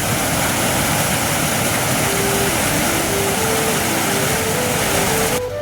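Loud, steady rush of fast-flowing water under a flute-like background melody. The rushing cuts off suddenly near the end, leaving only the music.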